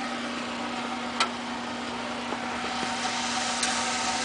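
Combustion-air blower of a homemade gasifying outdoor wood boiler running with a steady hum, a little louder near the end. A single sharp click comes about a second in.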